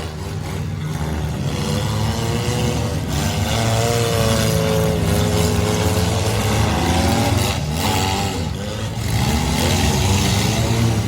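Several four-cylinder demolition derby car engines running and revving together, their pitches rising and falling as the cars accelerate and back off.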